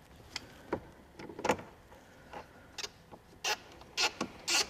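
Hard plastic clicks and knocks, with a few short scrapes, as a phone holder is seated and screwed onto a dash mount with a Phillips screwdriver. There are about eight irregular strokes, the loudest about a second and a half in and three short scrapes near the end.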